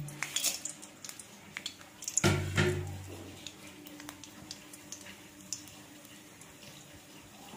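Whole spices and bay leaves dropped into hot oil in an aluminium kadai, tempering: a light clatter as they land, then scattered faint crackles in the oil. A louder knock comes about two seconds in.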